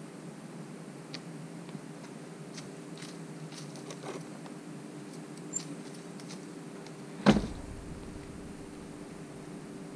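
Wooden window shutters being swung shut and latched: scattered light clicks and knocks, then one loud wooden thump about seven seconds in, over a steady low hum.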